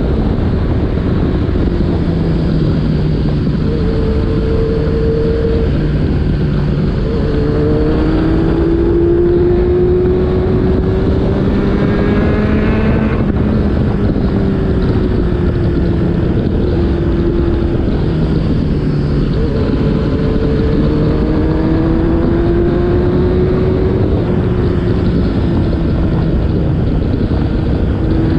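Motorcycle engine running hard, its pitch climbing slowly and then dropping back several times as it is revved and eased off, over a steady rush of noise.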